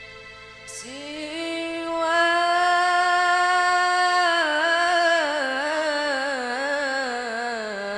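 A single voice singing a long, melismatic sholawat phrase without accompaniment: it enters about a second in on a held note, then winds through ornaments and falls toward the end.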